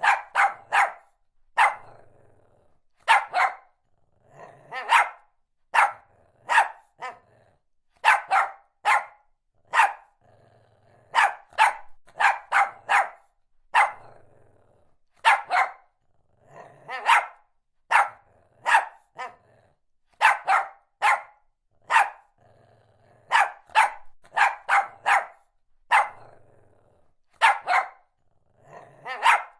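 Shih Tzu barking repeatedly: sharp, high yaps, some single and some in quick runs of two or three, with softer, lower sounds between some of the barks.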